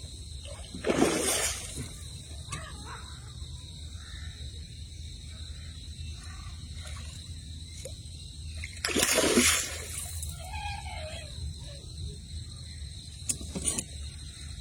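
Two loud splashes of water, about eight seconds apart, each lasting under a second, over a steady high-pitched whine.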